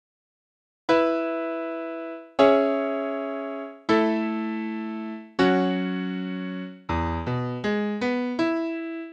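Keyboard piano sound playing slow block chords: four long chords, each struck and left to fade for about a second and a half, then quicker notes over a low bass line from about seven seconds in.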